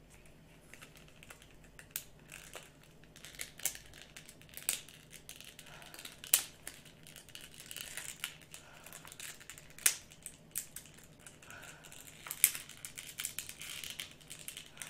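Fingers picking and prying at a doll's small folded card hang tag, which is hard to open: irregular light scratching and crinkling with scattered sharp clicks.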